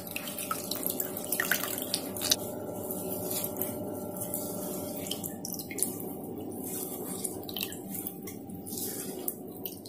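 Whey dripping and trickling into a plastic bowl in irregular small splats as a cloth full of vinegar-curdled milk curds is squeezed by hand, draining the curds. A faint steady hum runs underneath.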